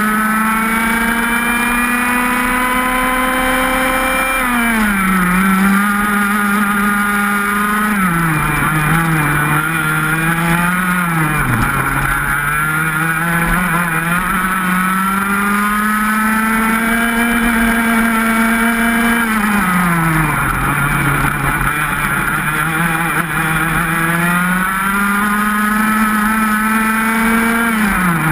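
125 cc two-stroke racing kart engine at full racing pace. Its pitch climbs slowly on the straights and drops sharply each time the kart brakes for a corner, about five times.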